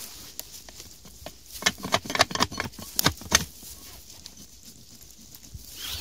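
Footsteps through dry undergrowth, snapping and crunching twigs and dead stalks: a quick run of sharp crackles in the middle, with light rustling around it.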